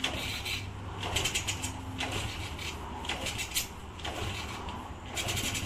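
Honda C70's small single-cylinder four-stroke engine idling with a steady low hum, irregular sharp ticks and clicks over it; it has just been brought back to running after years of sitting unused.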